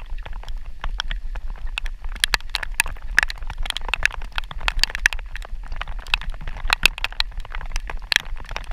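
Raindrops pattering irregularly on the camera and rain gear, a dense scatter of sharp taps, over a steady low rumble of wind buffeting the microphone.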